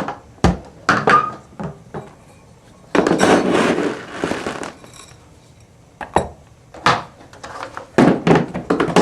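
Cat food being poured into an empty food dish, a rushing rattle lasting under two seconds about three seconds in. Around it come knocks and clunks as the dish and container are handled, the sharpest just after the start.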